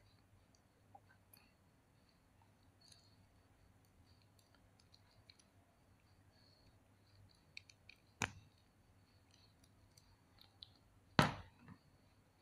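Faint ticks and clicks of armor pieces being handled and pressed onto an action figure's leg, with two sharper snaps about eight and eleven seconds in as the leg armor clicks into place.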